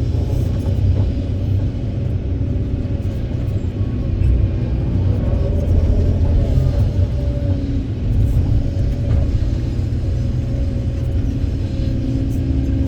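Kobelco 200SK excavator's diesel engine running at work with a steady low rumble and a steady hum over it.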